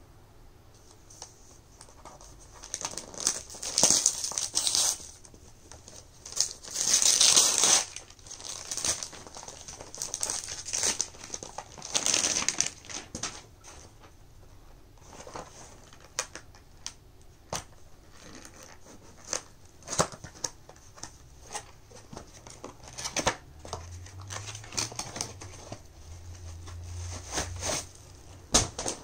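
Gift wrapping paper being torn off and crumpled in several loud rips, followed by scattered crinkles and clicks from handling a cardboard box and plastic packaging.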